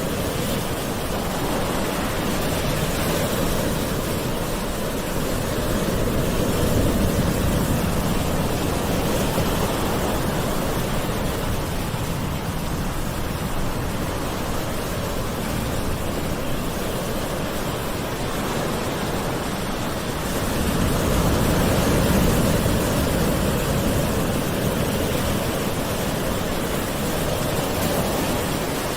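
Gentle sea waves washing ashore: a continuous surf hiss that swells twice, about a quarter of the way in and again past two-thirds.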